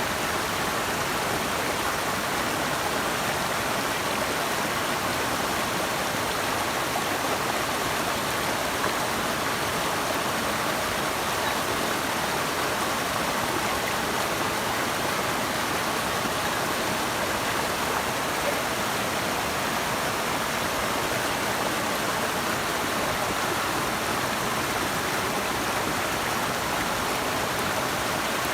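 Running water rushing steadily in a continuous, even hiss, with no let-up or separate splashes.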